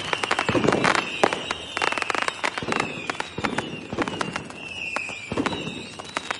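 Firecrackers and fireworks going off in a dense, continuous barrage of sharp pops and bangs, with a louder burst about every second. A high tone falling in pitch repeats behind them.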